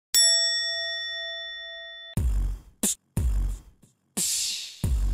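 A single chime-like ding rings out and slowly fades, cut off about two seconds in; then a looping drum beat of low kick thumps and hissy snare hits starts.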